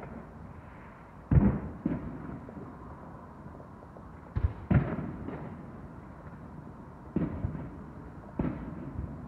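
Distant fireworks shells bursting: about nine deep bangs in small clusters of two or three, each trailing off in a rolling echo. The loudest comes about a second in.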